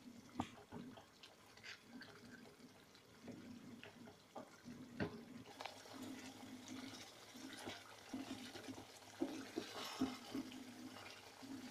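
Spoon stirring thick chicken curry gravy in a pan: scattered light knocks and scrapes of the spoon against the pan over a faint wet simmer.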